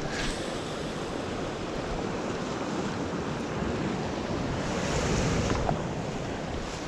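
Ocean surf washing around shoreline rocks, with wind on the microphone; the wash swells about five seconds in.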